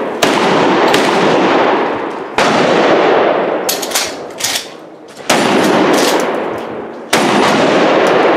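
Pump-action shotguns firing: four loud blasts about two seconds apart, each followed by a long echoing tail. Between the second and third blasts come a few quieter sharp cracks.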